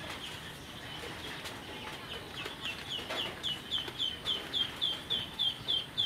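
Chick peeping: short, high-pitched, falling peeps, scattered at first and then repeating steadily at about three a second from about halfway through.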